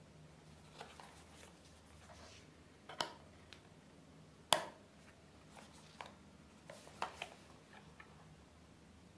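Hands handling a small cardboard earphone box and peeling a clear seal sticker from its top: scattered faint clicks, taps and scrapes, with two sharper clicks about three and four and a half seconds in.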